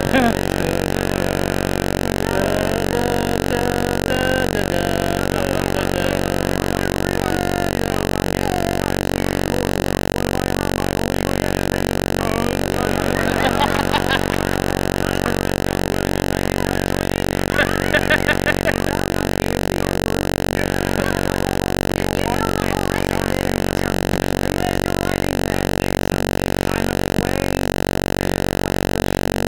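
A loud, steady buzzing hum with many evenly spaced overtones, unchanging throughout. Faint voices come through it now and then.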